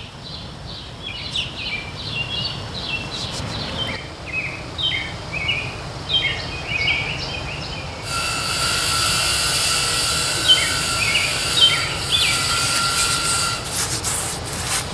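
Birds chirping repeatedly over a steady low rumble. About eight seconds in, a steady high whine with a hiss comes in, holds for about six seconds, then stops.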